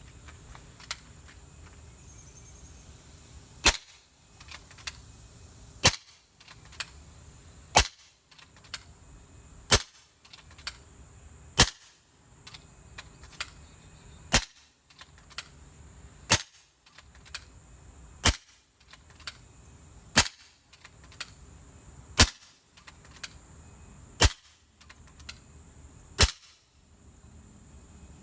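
Kral Puncher Breaker .22 PCP air rifle, fitted with a quiet kit, firing on high power: twelve sharp shots about two seconds apart, with a fainter click between each pair of shots.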